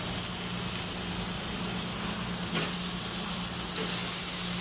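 Skirt steak pinwheels sizzling steadily as they sear on the hot grate of a charcoal Weber kettle grill, with a light click a little past halfway.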